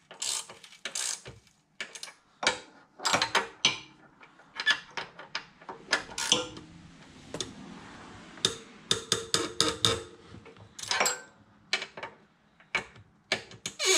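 Irregular metallic clicks and clinks of tools and bolts as the cylinder head bolts of a mini bike engine are fitted and tightened with a wrench.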